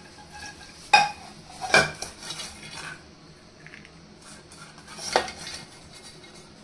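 Kitchen dishes and utensils being handled, clattering together: three sharp clanks about one, two and five seconds in, the first with a brief metallic ring, and lighter knocks between them.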